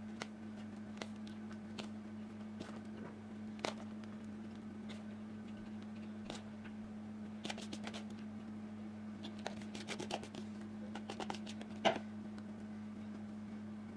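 Light clicks and taps of hands spreading chicken-and-cheese filling into a fluted metal cake tin, scattered at first and coming in a quick run near the end, over a steady low hum.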